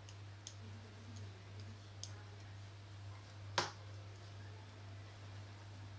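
Large knitting needles clicking against each other as a row of knit stitches is worked: a few scattered faint clicks, one sharper click about three and a half seconds in, over a steady low hum.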